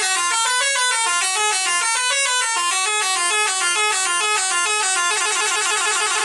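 Tour bus telolet basuri horn playing a fast melody of shrill tones that step up and down in pitch without a break. About five seconds in it switches to a rapid warbling trill.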